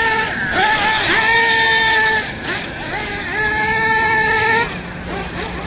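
Small nitro glow engine of an RC car running at high revs. The pitch is held steady for a second or so, dips and climbs again between about two and three seconds in, then holds high once more before easing off near the end.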